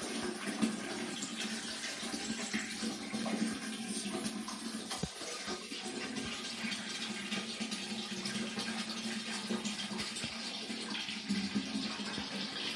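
Water running steadily from a tap, with a few small knocks.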